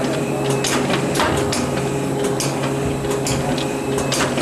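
Card packaging machine running, with printed cards indexing along its carrier plates: a steady hum under an uneven run of short, sharp clicking strokes, about two to three a second.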